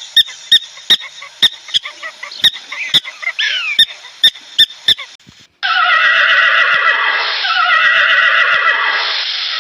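A series of sharp clicks or knocks, about two a second, for roughly the first five seconds. Then, after a short break, a horse whinnying loudly in a long wavering call.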